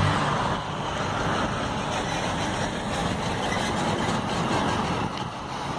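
Steady outdoor street ambience of a busy square: a continuous, even noisy rumble and hiss with no distinct events.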